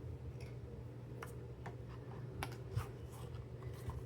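Scattered light clicks and taps from handling cash and a savings-challenge binder, growing busier about halfway through, over a steady low hum.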